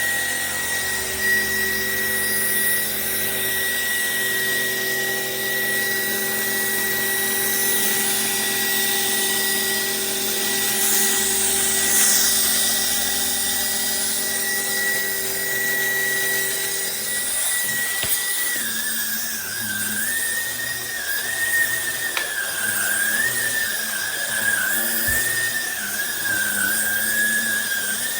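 Cordless stick vacuum motor running with a steady high whine over a hiss of rushing air. About 18 seconds in, the whine drops slightly in pitch and begins to waver unevenly.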